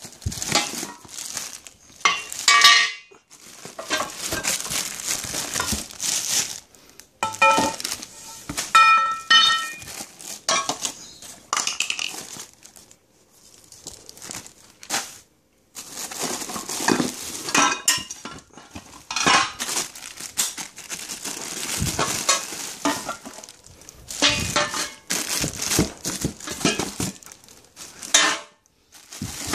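Plastic wrapping crinkling and rustling as wrapped steel bench parts are handled and shifted in their cardboard box. Metal parts clink and ring against each other now and then, most clearly about 7 to 10 seconds in.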